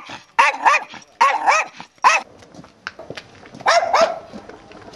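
A dog barking repeatedly, mostly in quick pairs of barks, seven barks in all, with a gap of over a second before the last pair.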